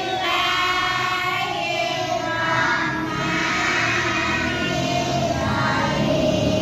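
A song sung by several voices together, with long held notes.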